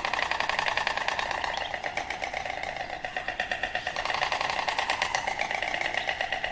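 Stork clattering its bill: a rapid, steady wooden rattle of many beats a second, going on without a break.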